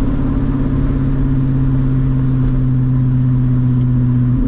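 Straight-piped C6 Corvette's LS2 V8 exhaust heard from inside the cabin, holding a steady, loud drone at highway cruise. The tone breaks briefly right at the end.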